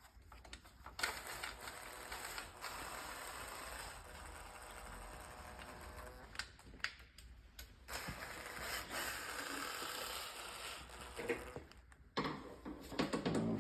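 Ratchet wrench clicking rapidly as gearbox housing bolts are spun in, in two long spells with a few separate knocks of tools on metal around them.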